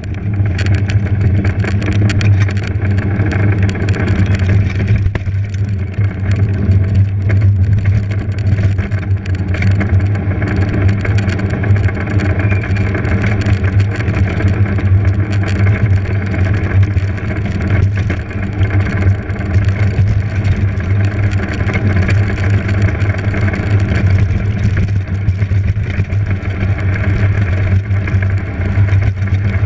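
Steady, loud rumble of a race vehicle running down a paved road, heard from a camera mounted on its nose, with no clear rise or fall in pitch.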